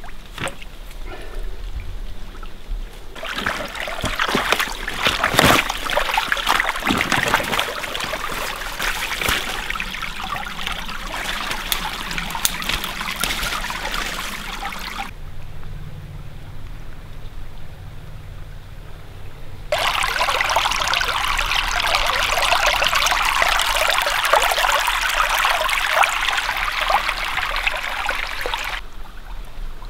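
Shallow water trickling and splashing over a muddy bank into a pond. It starts a few seconds in, drops away for several seconds in the middle, then returns.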